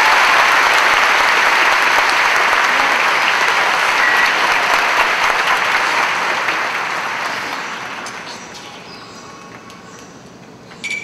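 Audience applauding in a large hall, loud at first, then dying away over the last few seconds.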